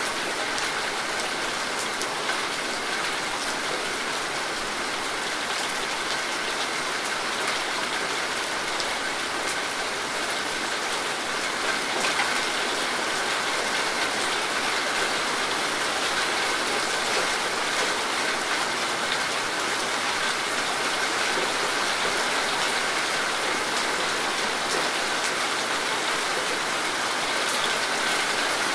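Steady rain falling on leafy foliage, a constant hiss full of small individual drop hits.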